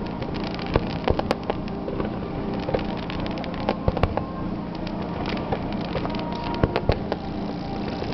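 Fireworks finale: many shells bursting in quick, irregular succession, with sharp cracks and crackling pops over a continuous rumble.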